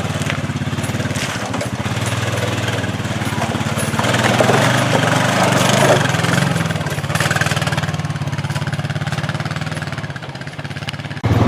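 Honda Pioneer 500 side-by-side's single-cylinder engine running as the vehicle drives, getting louder and noisier for a few seconds about halfway through.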